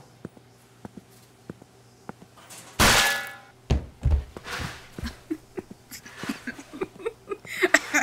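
A frying pan struck hard against a person: one loud metallic clang with a ringing tail about three seconds in, then two heavy thuds. Light clattering of dishes and cutlery around it.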